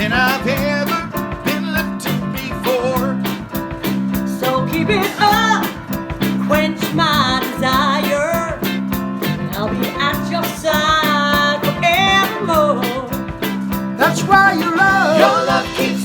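Live soul band of horns, guitar, bass, drums and keyboards playing an upbeat Motown-style groove. A repeating bass line runs underneath, with wavering melodic lines, sung or played, over it from about five seconds in.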